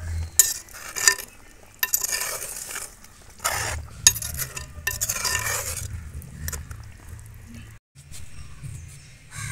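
A ladle stirring and scraping around a clay pot of bubbling sardine curry, in a series of short scrapes over a low steady hum.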